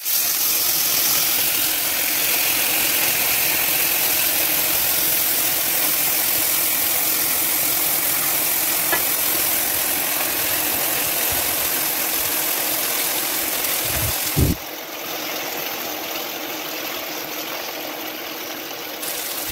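Chicken Manchurian gravy sizzling on a hot sizzler plate, a steady hiss. About three-quarters of the way in there is a brief low thud, after which the sizzling is quieter.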